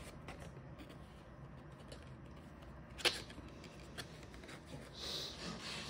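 Cardstock being handled: a sharp click about three seconds in, a fainter tap a second later, and soft rustling of paper sliding near the end.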